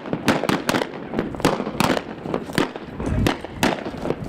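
A rapid, irregular series of sharp cracks, about two or three a second.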